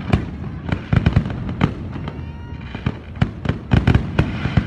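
Fireworks display: aerial shells bursting in a rapid, irregular series of sharp bangs and crackles, the bangs coming in clusters about a second in and again near the end.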